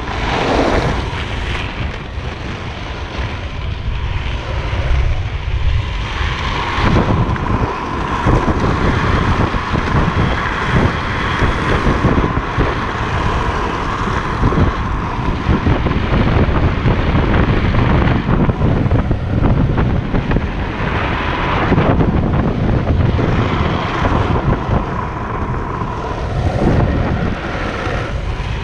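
Freebord wheels rolling fast on asphalt: a steady rumble with wind buffeting the microphone. From about a quarter of the way in, a thin steady hum rides on top until near the end.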